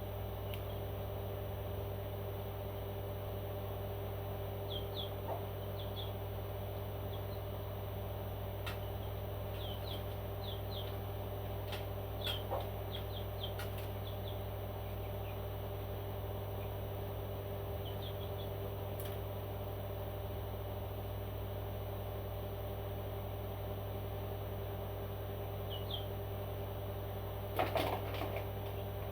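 A few short, high chirps from a parrot over a steady electrical hum, with a handful of faint clicks and a brief louder rustle of noise near the end.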